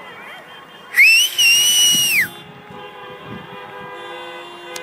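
A person whistling loudly, a shrill celebratory whistle. It glides up, breaks off briefly, then holds high and drops away at the end, lasting just over a second.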